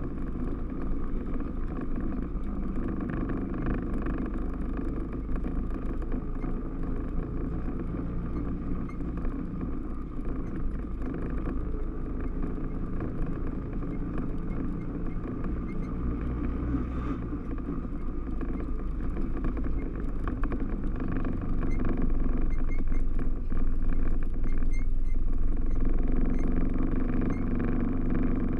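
Yamaha Rhino 660 side-by-side's single-cylinder engine running steadily while driving a trail, getting louder about two-thirds of the way through.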